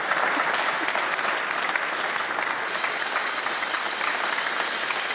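Studio audience applauding: many hands clapping steadily at an even level.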